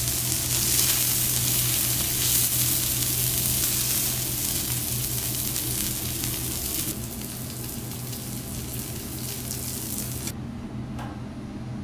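Beef steak slices sizzling on a hot teppanyaki steel griddle: a steady frying hiss that cuts off about ten seconds in, leaving only a low steady hum.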